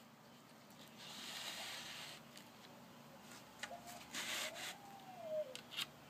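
Faint rubbing and clicking handling noise from a handheld phone camera being moved about. Near the end a faint call slides up and then down in pitch.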